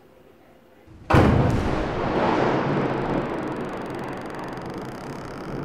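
Cinematic boom sound effect of an outro logo animation: a sudden loud impact about a second in, followed by a long, slowly fading rumble.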